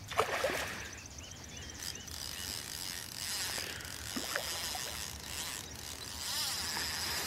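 Fishing reel ratcheting with fast, even clicks as it is worked while a hooked grass carp is played at the surface.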